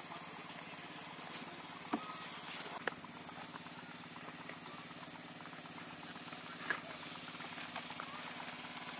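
Insects chirring in one steady high-pitched drone at dusk, over a low steady engine hum, with scattered faint clicks and short chirps.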